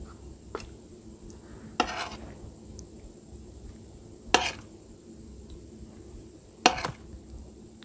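Steel spoon clinking and scraping against a stainless steel compartment plate while serving curry: three loud clinks, each with a short scrape after it, about two and a half seconds apart, and a lighter tick about half a second in.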